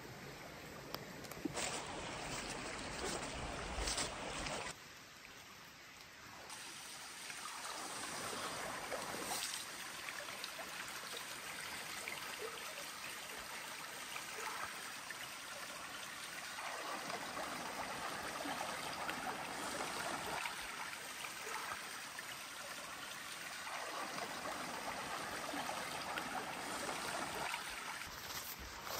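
Steady rushing and trickling of a stream, dipping for a couple of seconds about five seconds in.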